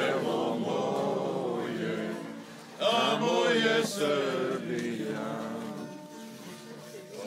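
A group of men singing a song together, with a new phrase starting loudly about three seconds in.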